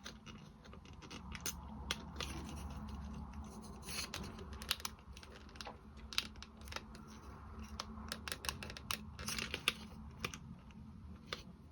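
Small clicks and scratches of clock-kit hands being handled and fitted onto the clock's centre shaft, with a faint steady hum underneath.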